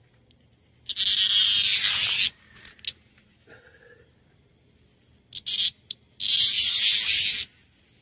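An annual dog-day cicada, prodded by a finger, gives two harsh, loud buzzes of about a second and a half each, with a few short chirps between them. This is the buzz a disturbed cicada makes when handled.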